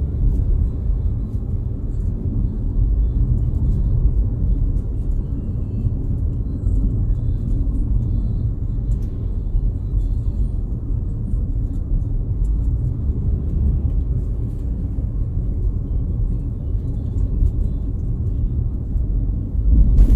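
Steady low rumble of a car driving along a paved road, engine and tyre noise heard from inside the cabin.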